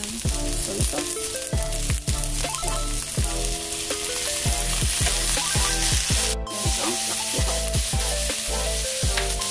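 Cabbage, carrots and green vegetables sizzling as they stir-fry in a metal wok with soy sauce poured in, over background music with a steady beat.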